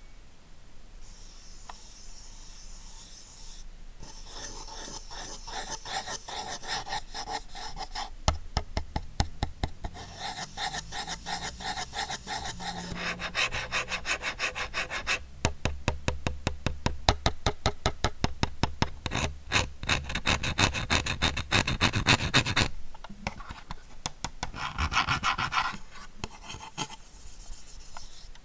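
Razer DeathAdder Essential gaming mouse being worked for its sound test: a rubbing, scraping sound with rapid runs of small ticks, loudest in a long run past the middle.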